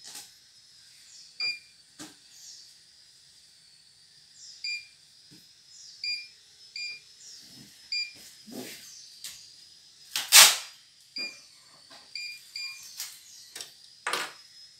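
CNY E900 computerised embroidery machine giving short electronic beeps, about a dozen at one pitch and irregular spacing, over a faint steady high whine. Scattered clicks and knocks run between them, the loudest a sharp knock about ten seconds in.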